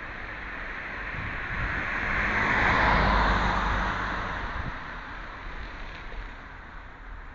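A car driving past: tyre and engine noise swelling to a peak about three seconds in, then fading away.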